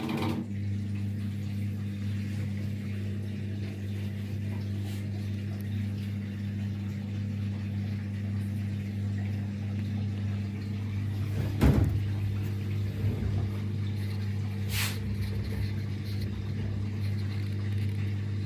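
Zanussi ZWSE680V washing machine running its last spin with a steady hum. There is a single loud thump about twelve seconds in and a short click a few seconds later.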